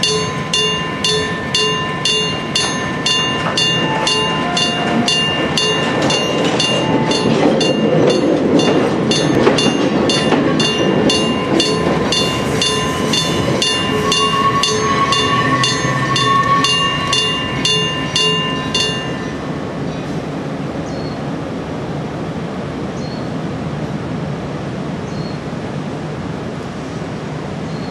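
Japanese level-crossing alarm ringing rapidly, about three times a second, while a Miike Railway train rumbles over the crossing, loudest around the middle. The alarm stops about two-thirds of the way through, leaving a steady, quieter rumble.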